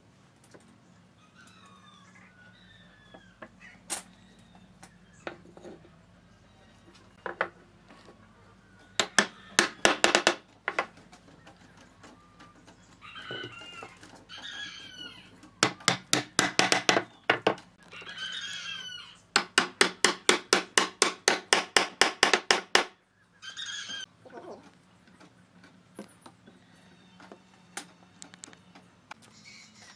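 Wooden mallet knocking tenoned wooden rungs into glued mortises in curved laminated rails, in three bursts of rapid knocks, about seven a second, with scattered single taps between. Birds call briefly between the bursts.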